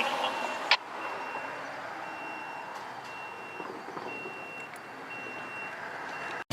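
Vehicle reversing alarm beeping: a single high tone repeating about once a second over steady background hiss, with a sharp click just under a second in.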